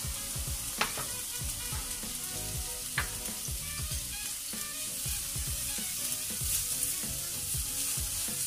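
Diced onion sizzling in hot oil in a wok, a steady frying hiss. Two sharp knocks come about one and three seconds in, and near the end a plastic spatula starts stirring the onion around the pan.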